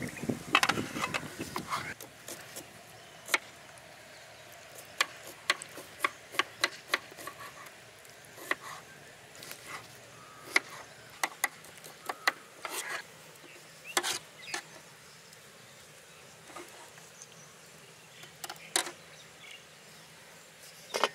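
Irregular sharp clicks and knocks of utensils being handled during cooking preparation, about one or two a second and busiest in the first two seconds, with a faint steady hum in the first several seconds.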